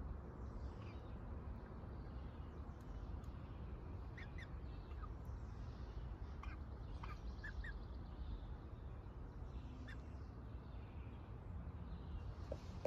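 Hens giving short, scattered high calls in small clusters, over a steady low rumble.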